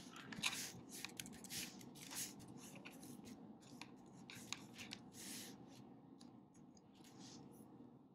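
Faint, irregular soft clicks and short scratchy rustles of hands working at a desk: typing on a laptop keyboard.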